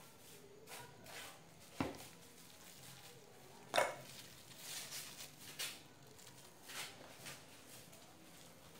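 Two sharp knocks of kitchenware set down on a stone counter, then crinkling of a thin plastic ice-pop bag filled with milk mixture as it is handled, in short bursts.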